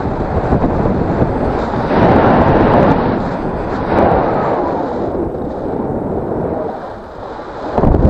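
Wind buffeting the microphone of a paraglider pilot's action camera in flight: a loud, gusting rush that swells about two seconds in and again around four seconds, dips near the end, then surges back.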